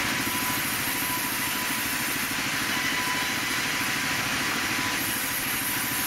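Sawmill band saw and its machinery running steadily, a constant mechanical drone with a steady high whine over it.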